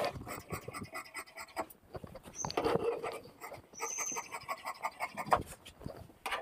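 Large tailor's scissors cutting through folded cloth in a run of short, irregular snips, with the cloth rustling as it is shifted on the table.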